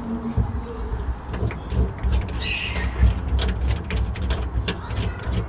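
Hand-operated RZX long-handled rivet nut tool being worked to set a rivet nut in a sheet-metal floor pan: a run of small clicks and handling knocks, with a brief squeak about two and a half seconds in.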